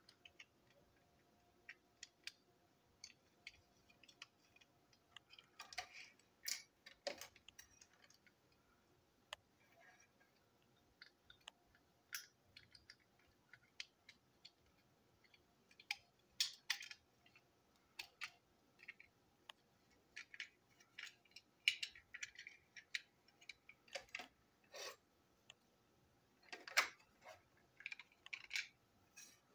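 Small plastic parts handled and fitted together by hand: faint, irregular clicks and taps, with a few louder bunches of clicking.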